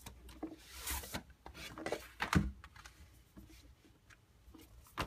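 Cardboard packaging being handled: a brief rubbing hiss as the red inner box slides out of its cardboard sleeve, then one sharp knock a couple of seconds in and a few lighter taps of the box against the table.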